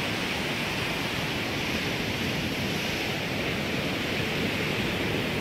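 Steady rush of ocean surf breaking on a sandy beach, an even hiss with no change in level.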